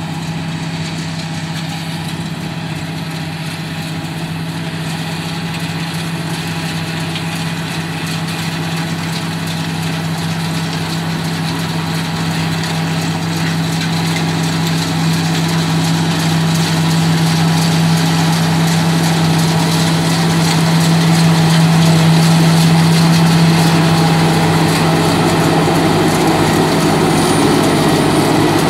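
New Holland FX40 self-propelled forage harvester running under load as it picks up and chops a grass swath: a steady deep engine drone over the rush of the crop through the machine. It grows louder as it comes closer, loudest about three quarters of the way through.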